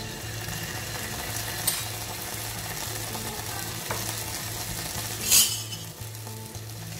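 Ginger-garlic paste sizzling in hot oil in a frying pan: a steady sizzle with a couple of small pops and one louder sputter about five seconds in.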